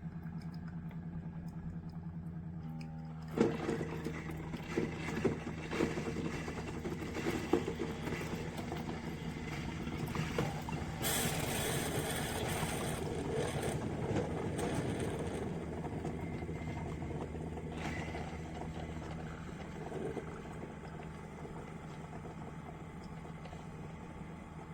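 Hamilton Beach FlexBrew drip coffee maker brewing: a steady hum, joined about three seconds in by irregular popping and crackling, with a louder hiss from about eleven to fifteen seconds in.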